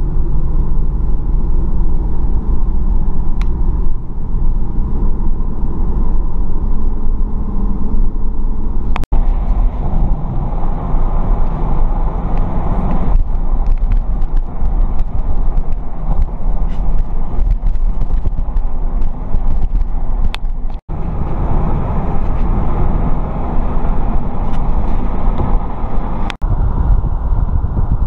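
A car driving along: a steady low rumble of road and wind noise. Several brief cut-outs break it where clips are joined.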